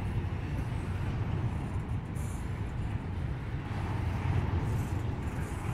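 Norfolk Southern double-stack container train rolling past, a steady low rumble of wheels and railcars on the track.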